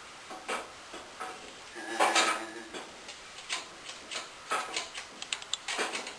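Small metal engine parts and hand tools clicking, tapping and clinking during disassembly of a small engine, with a louder clank about two seconds in and a quick run of light ticks near the end.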